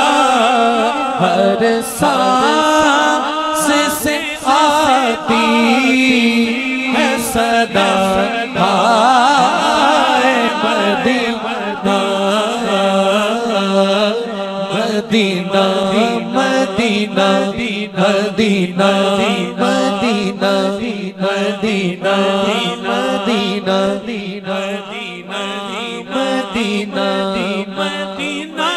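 A man singing a naat, an Urdu devotional song, into a microphone, with long wavering ornamented notes over a steady low drone. From about halfway the melody turns into a quicker, evenly repeating rhythmic phrase.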